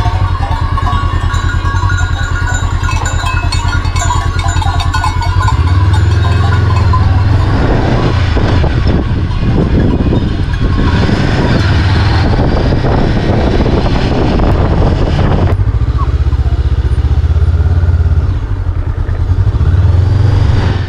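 Honda CB500X parallel-twin motorcycle engine running with a steady low pulse. In the middle a stretch of louder rushing noise is added and cuts off suddenly; the engine pulse continues alone afterward.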